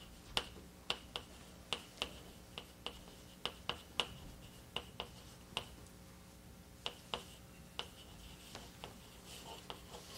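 A run of sharp, irregular clicks, about two a second, each with a brief high ring. They pause for about a second past the middle, then return fainter near the end, over a faint steady hum.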